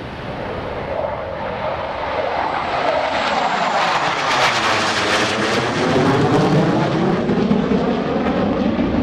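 Two F-16 Fighting Falcons flying a low formation pass overhead, their jet noise building as they approach. The roar is loudest and crackling from about four to six seconds in, with a sweeping whoosh as they go over, and stays loud as they pull away.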